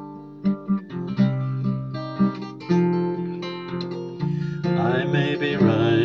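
Steel-string acoustic guitar picked and strummed in a slow ballad accompaniment, a run of separate notes and chords between sung lines. A man's voice comes back in singing with vibrato about four and a half seconds in.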